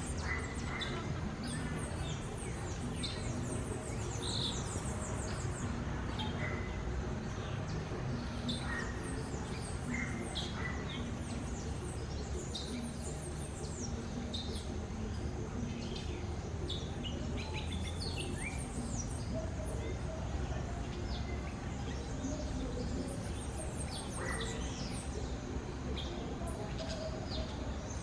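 Flock of green parrots calling: many short, high chirps overlapping throughout, several falling in pitch, over a steady low background noise.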